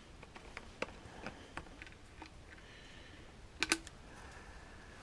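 Light, scattered clicks and taps from the Shindaiwa 300S chainsaw's plastic housing as it is handled and worked apart by hand, with two sharper clicks close together a little past halfway.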